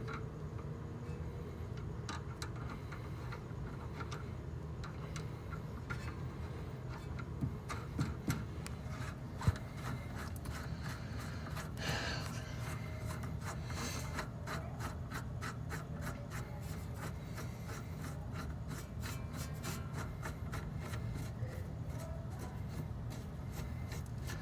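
Metal scraping and small clicks from hand work on a car's steering tie rod: the outer tie rod end is being unthreaded and a locking nut run down the tie rod threads. A few sharper knocks come around eight to nine seconds in, and quicker clicking fills the last several seconds, over a steady low hum.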